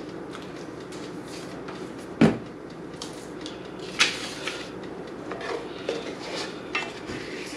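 Kitchen handling sounds: one heavy thud about two seconds in and a sharp click about four seconds in, then a black spoon scraping and tapping in a stainless-steel sauté pan as a thick onion and spice mixture is stirred.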